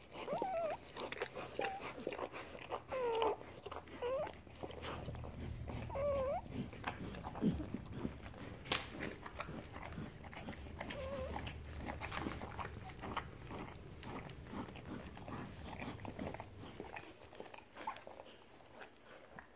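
Newborn German shepherd–boxer mix puppies squeaking: short, high, wavering whimpers, several in the first dozen seconds and fewer after, over soft rustling and clicking as they and the mother dog move about on the bedding.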